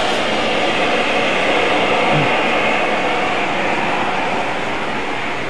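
A burning spark-and-smoke fountain on the demonstration bench, giving off a loud, steady rushing hiss that swells slightly and then eases near the end.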